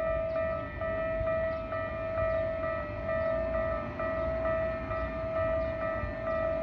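Japanese level-crossing warning bell ringing: an electronic clang that repeats a little over twice a second, over a low rumble.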